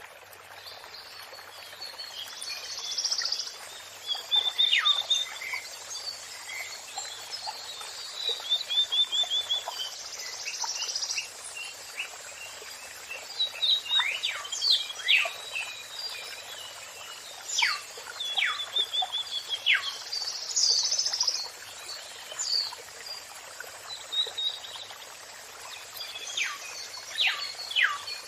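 Songbirds singing over a steady rush of running water: repeated rapid trills, sharp whistles that drop steeply in pitch, and short chirps every few seconds.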